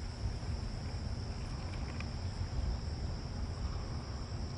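Steady high-pitched trilling of crickets, over a low rumble of wind on the microphone.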